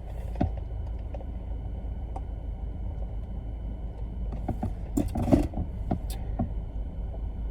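Steady low rumble of a car running at idle, heard from inside the cabin, with scattered small clicks and a short burst of handling noise a little after five seconds.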